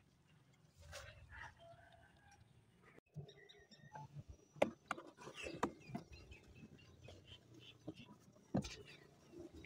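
Small boat being hand-paddled: a paddle knocking sharply against the hull several times, with smaller clicks and light water sounds between the knocks.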